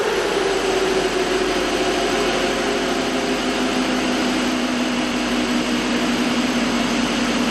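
Ford 6.0L Powerstroke diesel truck winding down on a chassis dyno after a pull. A falling whine levels off about three seconds in, over a steady rushing noise.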